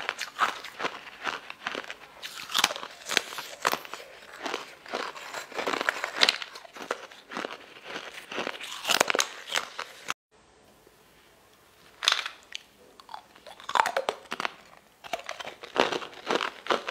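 Close-up crunching and chewing of crisp translucent lotus root slices, many sharp bites in quick succession. About ten seconds in the sound cuts off suddenly for about two seconds of near silence, then crunching and chewing of sugar-coated starfish-shaped candies starts again.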